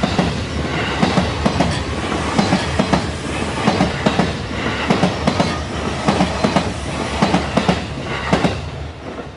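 JR E233 series 2000 electric commuter train running, its wheels clacking over rail joints in quick pairs above a steady low running hum.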